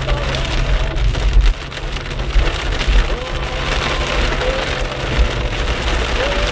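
Heavy rain pelting a moving car, heard from inside the cabin, over the low rumble of the car driving on a wet road. A few faint, short squeaks recur now and then.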